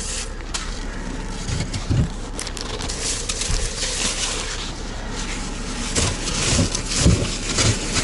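Gloved hands breaking off and scooping chunks of hard, frozen wind-packed snow, crunching and scraping in bursts, with a few low thumps near the end, over a steady low rumble.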